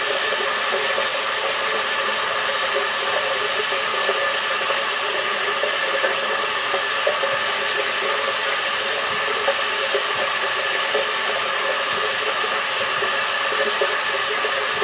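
Water tap left running steadily into a sink: a constant, even hiss of water.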